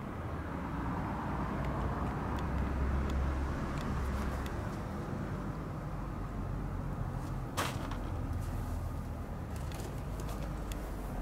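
Steady low background rumble that swells over the first few seconds and then eases, with scattered faint clicks and one sharp click about two-thirds of the way through.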